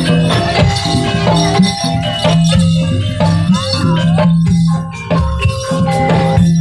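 Live jaranan dance music from a Javanese gamelan-style ensemble: pitched percussion and drums playing over steady held tones, with frequent sharp strikes.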